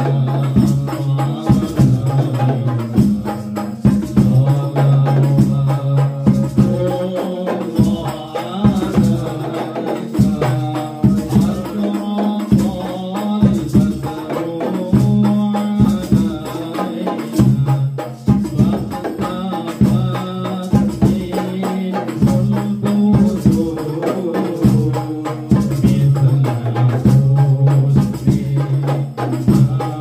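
Hadroh ensemble performing sholawat: a male voice singing long held notes into a microphone over frame drums and jingling tambourines beaten in a steady, quick rhythm.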